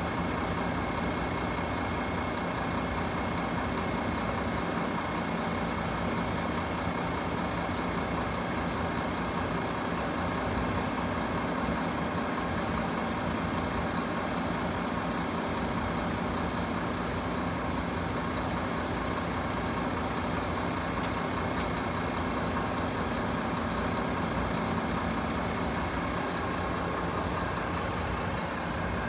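Steady drone of road vehicle engines idling.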